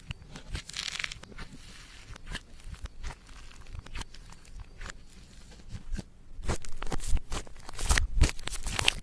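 Slime being squished and worked by hand, with sticky clicks and crackling pops. They are sparse at first and come thicker and louder from about six seconds in.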